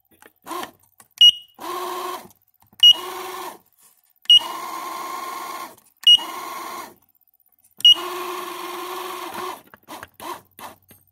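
Raymarine Autohelm 800 tiller pilot's drive motor running in five bursts of one to two seconds, each begun by a keypad press with a short high beep. The unit is under test for driving in only one direction, a fault the owner puts down to bad solder at the motor-drive transistors.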